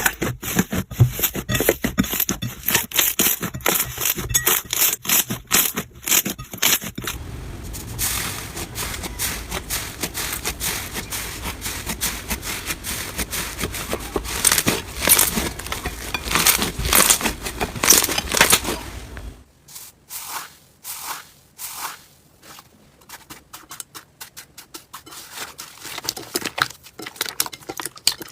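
Slime being squeezed, poked and stretched by hand, giving dense crackling and popping clicks. The texture changes about seven seconds in and again near the twentieth second, ending in sparser, separate clicks.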